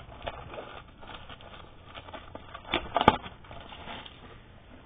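Plastic wrap crackling and cardboard rustling as a trading-card hobby box is ripped open, with a sharper snap about three seconds in.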